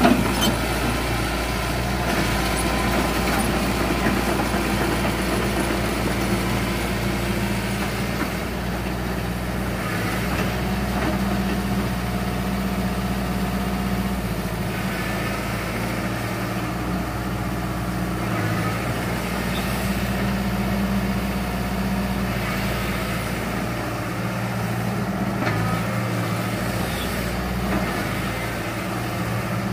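Hitachi Zaxis 120 excavator's diesel engine running steadily with an even hum as the machine travels on its tracks.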